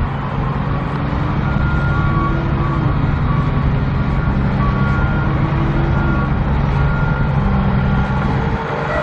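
Heavy construction equipment's engine running steadily, its pitch swelling and easing a couple of times, with a reversing alarm beeping at intervals.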